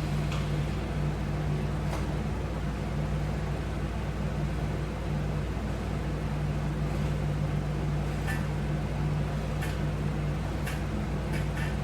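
Steady low electrical or mechanical hum of room background, with a few faint clicks scattered through it.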